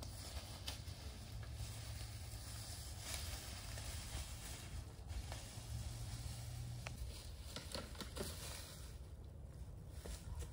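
Footsteps crunching and rustling through dry leaf litter, with scattered small snaps and clicks, over a steady low rumble.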